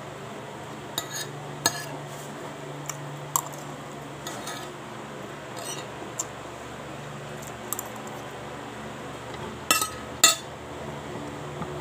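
Metal spoon clinking and scraping against a ceramic plate while eating rice: scattered light clicks, the two loudest near the end.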